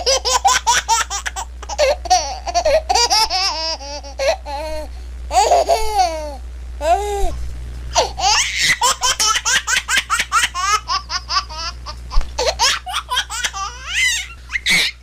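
Baby laughing in long runs of rapid, high-pitched giggles, with a few short breaks between the runs.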